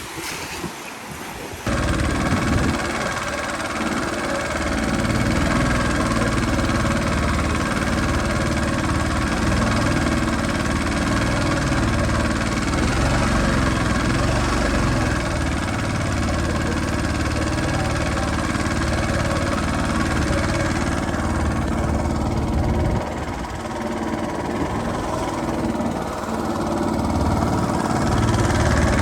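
An engine running steadily at an even speed, cutting in abruptly about two seconds in.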